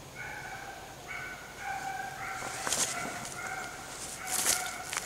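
A pack of deer hounds baying on a trail: several drawn-out bawls overlapping and coming one after another. Two brief rustles close by, the louder one near the end.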